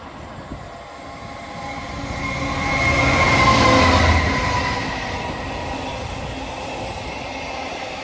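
Intermodal freight train passing through the station: the locomotive swells past about three to four seconds in with a slightly falling whine, then the container wagons roll steadily by.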